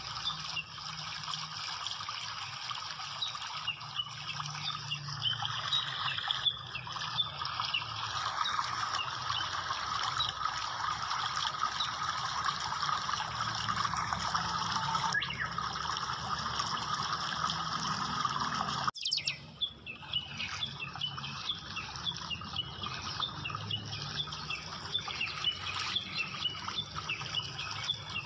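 Many small birds chirping over a steady rush of running water. The sound breaks off sharply for an instant about two-thirds of the way through, then the chirping comes back more prominent.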